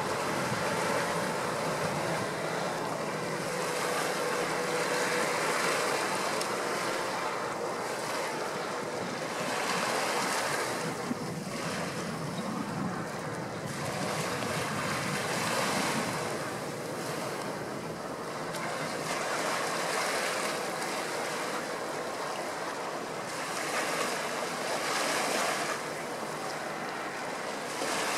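Wind gusting on the microphone over the wash and splash of choppy river water, with gusts of hiss that swell and ease every few seconds.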